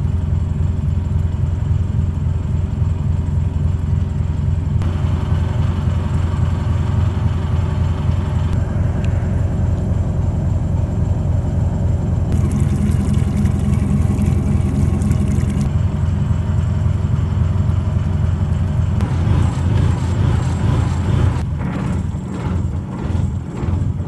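A small passenger ferry's engine running steadily under way, a deep even hum. A hiss rises over it for a few seconds in the middle, and the engine sound wavers near the end.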